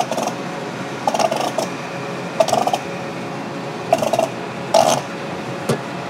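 Steady vehicle engine hum, with about six short, louder sounds breaking in at irregular intervals.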